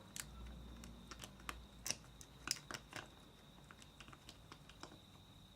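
Bobby-pin pick and tensioner clicking and scraping inside the keyway of a Master Excell padlock during single-pin picking: a run of small, irregular clicks, busiest in the first three seconds and fainter after.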